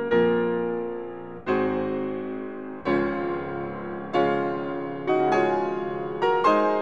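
Background piano music: chords struck about every second and a half, each left to fade, coming closer together near the end.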